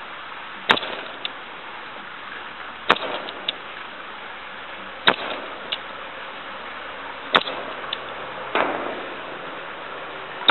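Semi-automatic airgun firing four shots about two seconds apart, each crack followed by a fainter click about half a second later. A softer, longer rush of noise comes near the end.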